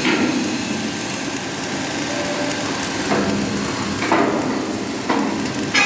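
CO2 gas-shielded (MIG) welding arc running, a steady crackling buzz, with a few brief louder surges about once a second in the second half.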